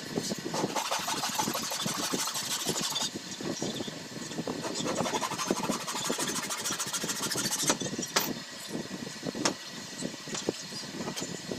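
A bare hacksaw blade, held in the hand, sawing into a wooden stick in two spells of quick back-and-forth strokes. A few sharp clicks follow near the end as the cut piece is handled.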